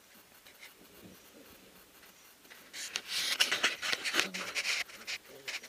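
Puppies scrambling in wood-shaving bedding: a dry rustling and scratching that starts about halfway through, lasts about two seconds, then dies down.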